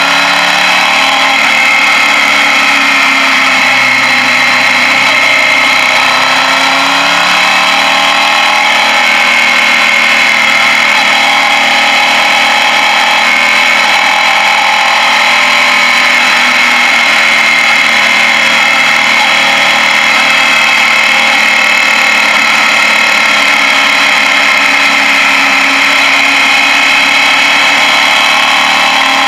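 Suzuki Gladius motorcycle's V-twin engine running steadily while riding downhill, its pitch drifting slightly in the first few seconds, heard from a rider-worn camera with a steady rush of air over it.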